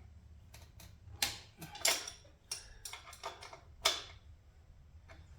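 Hand tools at work on a minibike's rear axle nut: scattered sharp metallic clicks and taps, about a dozen, at an uneven pace, from sockets and a wrench being fitted and handled.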